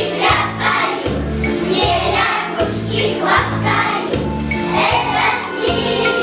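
A choir singing over a backing track with a steady beat.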